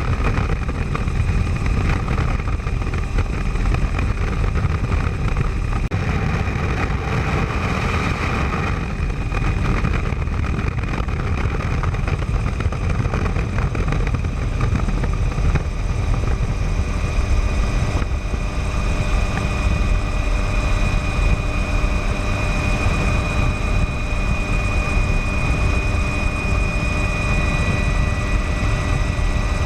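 Helicopter in flight: a steady loud drone of rotor and engine, with a high steady tone running through it that grows stronger about two-thirds of the way in.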